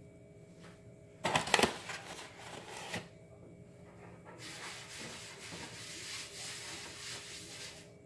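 Hands working bread dough on a floured stone counter, with a loud scuffing handful of strokes about a second in. From about halfway, a steady dry rubbing as a hand spreads flour around the inside of an aluminium baking pan.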